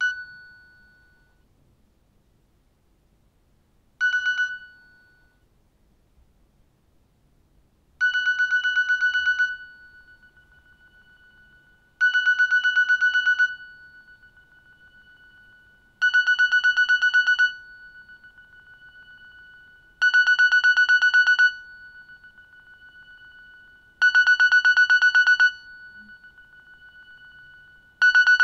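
Nokia 6600 'Clock alert' alarm tone: a single short electronic beep, another about four seconds later, then from about eight seconds in repeated bursts of rapid beeping about a second and a half long, one every four seconds.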